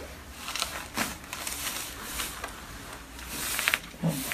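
Joints cracking under a chiropractic adjustment: a sharp pop about a second in, then a quick run of cracks near the end.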